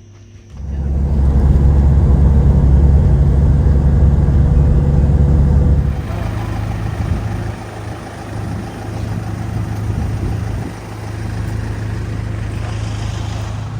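Road traffic noise: a loud, steady low rumble of passing vehicles that starts suddenly and drops off abruptly about six seconds in, leaving a weaker traffic rumble.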